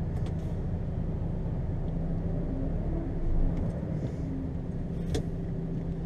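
HGV lorry's diesel engine running steadily at low speed, heard from inside the cab as a low drone, with a single sharp click about five seconds in.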